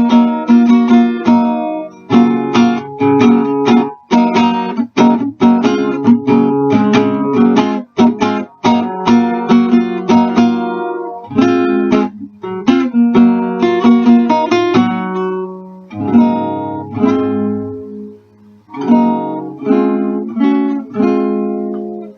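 Solo acoustic guitar playing strummed and picked chords. Near the end it slows to a few long, ringing chords and stops.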